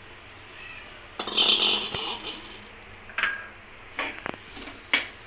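Steel spoon stirring and scraping grated jaggery in a steel kadhai: a loud scrape of about a second starting about a second in, then a few sharp clinks of the spoon against the pan.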